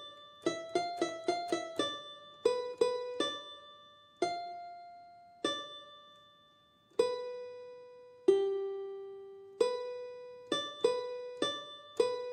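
Background music: a melody of single notes, each struck sharply and left to ring and fade, quick at first, slowing to a few long notes in the middle, then quickening again near the end.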